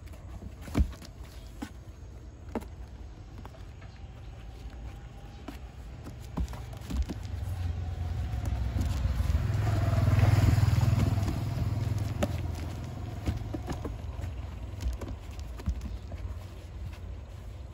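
A motor vehicle passing by: a low rumble that builds to a peak about ten seconds in and then fades away. Scattered small clicks and knocks are heard throughout, with one sharp knock about a second in.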